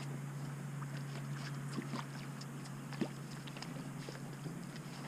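Clicks and knocks of fishing gear and a landing net being handled on a pontoon boat deck while a fish is brought in, with one sharper knock about three seconds in, over a steady low hum.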